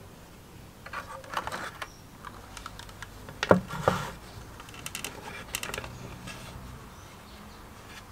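Plastic car battery charger and its metal crocodile clamps being handled on a wooden tabletop: runs of small clicks and rattles, with two sharp knocks about three and a half seconds in that are the loudest.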